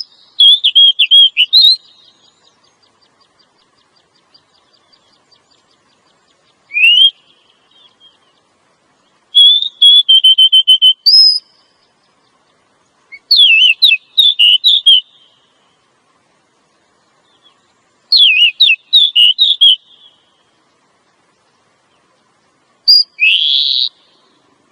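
Female oriental magpie-robin (kacer) calling: about six short bursts of quick, sliding whistled notes, a few seconds apart, with silence between them.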